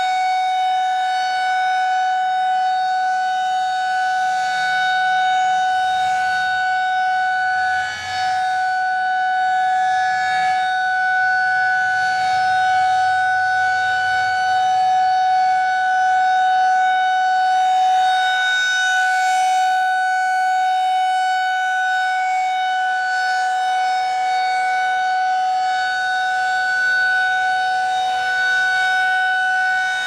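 Federal Signal 2001-SRNB rotating warning siren sounding a steady single tone, the alert signal of a monthly siren test. The pitch holds level as the horn turns, with one brief dip in loudness about eight seconds in.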